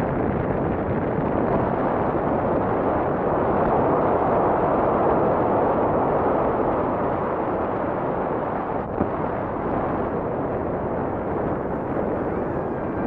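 Wind buffeting the microphone aboard a moving lake boat: a steady, loud rushing noise with no clear engine note.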